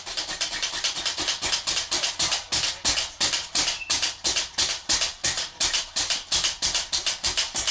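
Rapid, even rattling or scraping strokes, about six a second, keeping up a steady rhythm.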